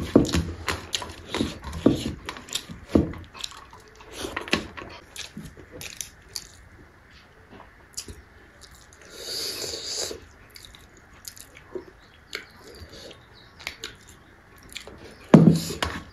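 Eating sounds: chewing and wet mouth clicks, and fingers mixing rice on a steel plate. About nine seconds in, curry is poured from a steel bowl onto the rice.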